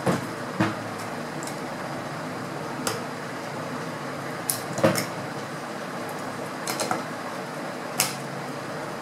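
Several sharp clicks and knocks at irregular intervals as the metal parts of a break-barrel air rifle's action are handled and fitted together on a tabletop, over a steady hiss.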